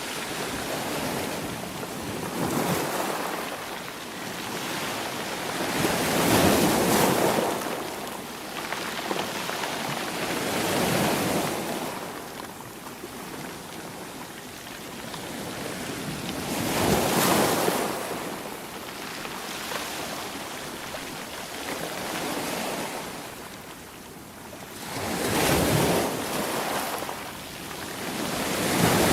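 Sea waves breaking and washing in, each surge swelling and fading every few seconds, about six times.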